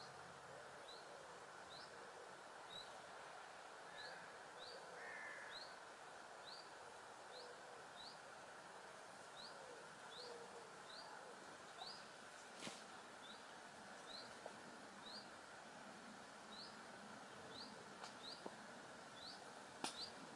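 Faint small-bird call: a short, high, upward-slurred chirp repeated steadily, about one to two a second, over quiet outdoor background hiss. A couple of faint clicks come near the end.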